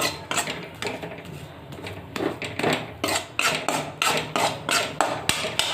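Spoon scraping around a kadhai, about two strokes a second, stirring gram flour as it roasts in a little oil.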